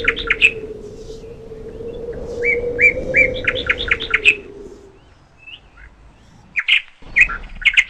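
A songbird singing a repeated phrase: a run of even notes followed by quicker, varied notes, given twice, then a few more notes near the end. A steady low hum sounds underneath and fades out about five seconds in.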